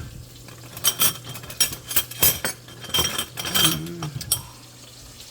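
Kitchen utensils and containers clinking and clattering: a quick run of sharp clicks and clinks lasting about three and a half seconds, one of them ringing briefly.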